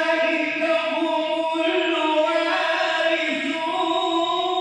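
A man reciting the Quran in a melodic, chanted style, drawing out one long continuous phrase. The held notes rise and fall slowly in pitch.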